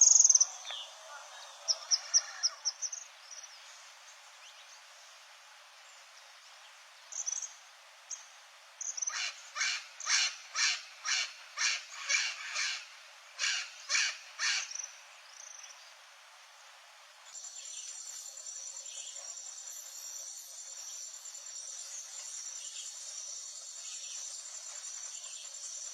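Wild birds singing: scattered high chirps, then a loud series of about a dozen repeated notes, roughly two a second. About two-thirds of the way in, this switches abruptly to a steady, high insect trill like a cricket's, which continues to the end.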